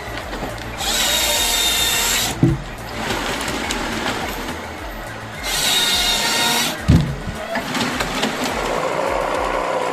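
Background music with a steady beat, over which come two loud hissing bursts of about a second and a half each, each ending in a heavy thump.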